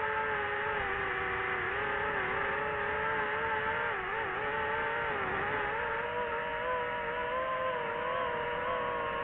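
DJI FPV drone's motors and propellers whining steadily, the pitch wavering with throttle and dipping briefly about four seconds in.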